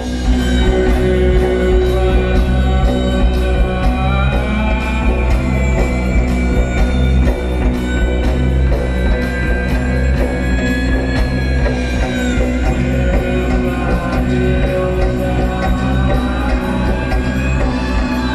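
Live post-rock band playing loud, with drum kit, heavy bass and a high melodic line that glides up and down in pitch over a fast, even cymbal pulse.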